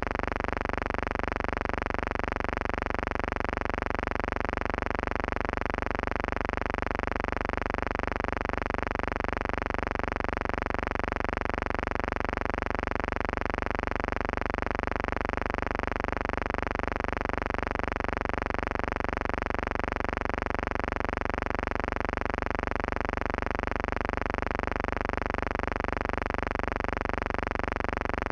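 A steady, unchanging buzzing hum with many overtones.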